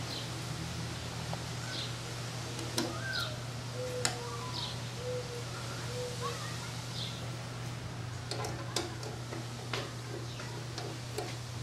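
Small clicks and taps of jumper wires being fitted to the terminal screws on the back of a LiftMaster garage door opener, with a cluster of them near the end, over a steady low hum. Short high chirps repeat every second or two.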